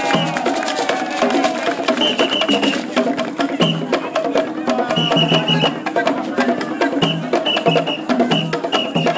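Live African-style drumming: several tall wooden hand drums struck together in a fast, dense, steady rhythm.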